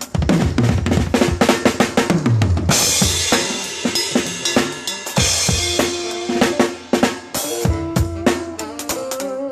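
A live band playing during a sound check, led by the drum kit: a run of tom hits falling in pitch over the first couple of seconds, then a cymbal crash about 2.7 seconds in, with bass-drum and snare strokes over held notes from other instruments.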